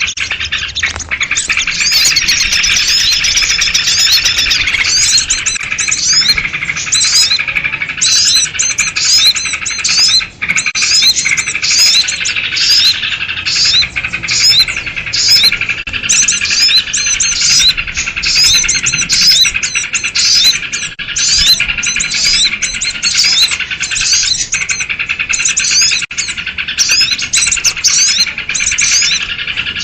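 Dense, unbroken chorus of many small birds chirping and chattering rapidly over one another, with sooty-headed bulbuls (kutilang) among them: a bird-trapping lure recording of a noisy mixed flock.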